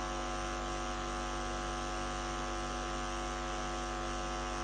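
Steady electrical mains hum and buzz in the microphone's sound system: a low drone with many buzzing overtones that does not change.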